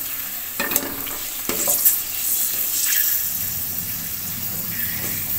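Fryums deep-frying in hot oil in an aluminium pot, a steady sizzle on a medium flame, with a few light clinks of a wire spider skimmer stirring them against the pot.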